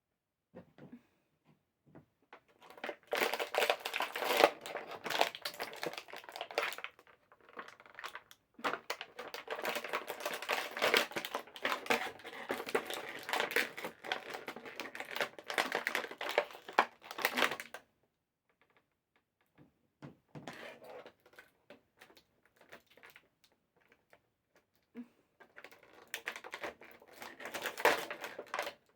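Stiff plastic packaging crinkling and clicking as action figures are worked out of their plastic trays, in two long spells with quiet gaps and a shorter spell near the end.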